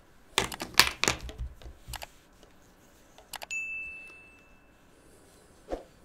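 Subscribe-button animation sound effects: a quick run of clicks, then a click and a single high notification-bell ding that rings and fades over about a second and a half.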